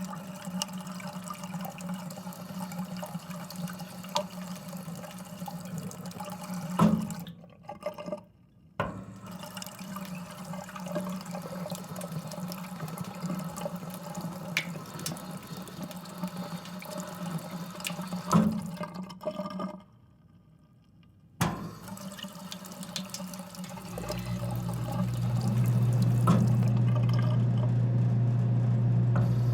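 Drinking fountain water stream running and splashing, cut off twice for a second or two with a click as the button is released and pressed again. About three quarters of the way in, the fountain's cooler compressor switches on and settles into a steady low hum under the water.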